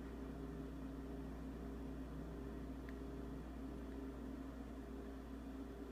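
Steady low hum of a kitchen refrigerator running, with no gurgling from the sink drain.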